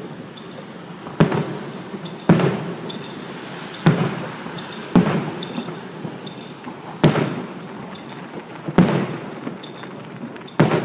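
Fireworks going off: about seven sharp bangs at uneven intervals of one to two seconds, each with a short trailing echo.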